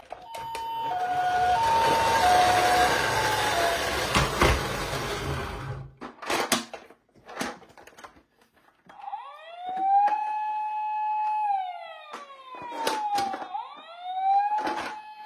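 Toy ambulances' electronic sirens. A two-tone hi-lo siren plays over a rough rolling noise for the first few seconds, then come a few handling clicks. From about nine seconds a wailing siren rises, holds, slides slowly down and rises again.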